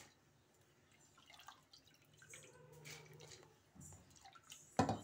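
Dal being stirred by hand into hot water in a pressure cooker pot: faint watery drips and small splashes, then a single sharp knock near the end.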